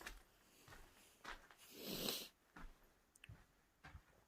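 Near silence: room tone with a few faint rustles and light knocks, and one soft hiss about two seconds in.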